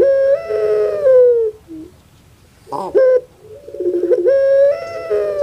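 Female puter pelung collared dove cooing: two long drawn-out coos, each held and then sliding down in pitch, separated by short sharp notes. The second coo opens with a buzzy, pulsing note before the long held part.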